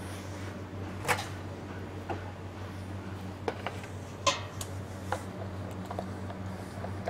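Metal palette knife clicking and scraping against a stainless steel cake frame while spreading buttercream: about six sharp clicks, roughly one a second, the loudest about four seconds in. A steady low electrical hum runs underneath.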